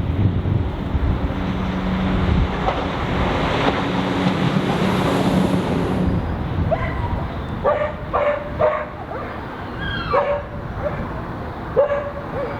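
A loud passing-train rumble with a steady low engine hum for the first half. From about halfway, a dog barks about six times in short, sharp barks, spaced unevenly.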